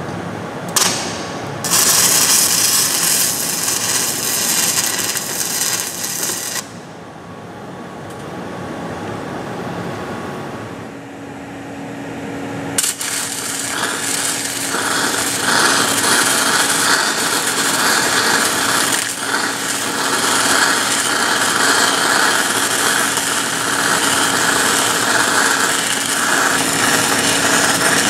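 Stick-welding arc from a 3/32-inch 6010 electrode at about 68 amps, DC electrode positive, running the open-root pass on a steel pipe joint: a dense, steady crackle. The arc catches briefly about a second in, burns for about five seconds, drops away for several seconds, then is struck again around thirteen seconds in and runs on steadily.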